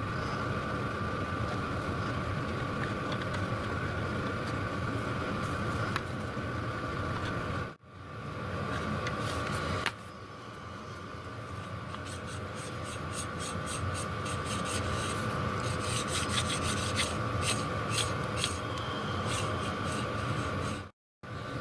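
Small three-jaw lathe chuck being handled and turned in the hands with its jaws out: metal rubbing, then a run of light, sharp metallic clicks in the second half. A steady two-tone hum runs underneath.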